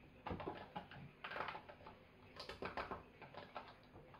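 Plastic filter housings of a reverse-osmosis water filter being screwed tight by hand: faint, scattered small clicks and knocks of plastic in several short groups.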